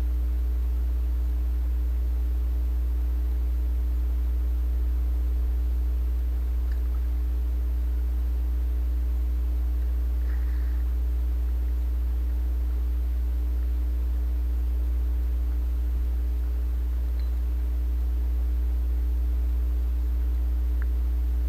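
A steady low electrical hum, with two fainter steady tones above it.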